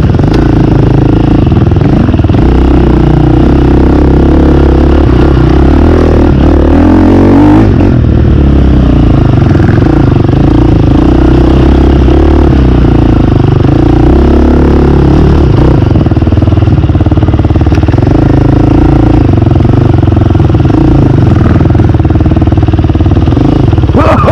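Dirt bike engine heard up close from the rider's seat, running loudly with the revs rising and falling continuously as the bike is ridden.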